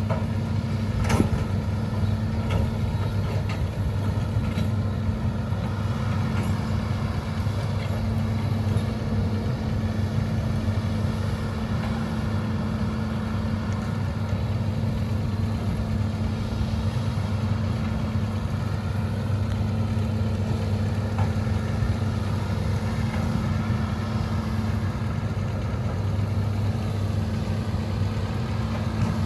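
Hitachi ZAXIS 210LC long-reach excavator's diesel engine running steadily as it works. There is a sharp knock about a second in and a few lighter knocks over the next several seconds.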